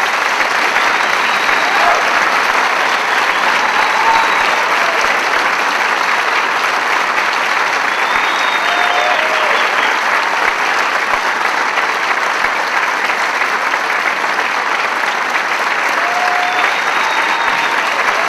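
Concert hall audience applauding steadily and loudly, with a few brief calls rising above the clapping.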